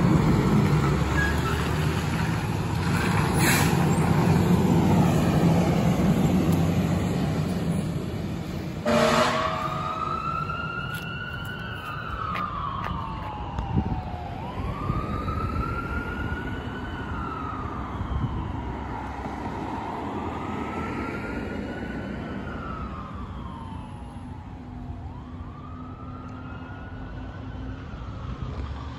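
Fire engine pulling away: its heavy diesel engine runs loud for the first several seconds, a short horn blast sounds about nine seconds in, then the wail siren starts, rising and falling about every four seconds and fading as the truck drives off.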